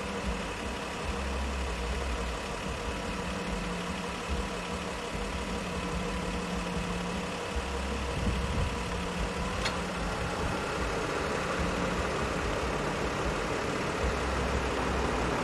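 A vehicle's engine idling: a steady running hum and hiss whose pitch shifts about ten seconds in, with low rumbling patches.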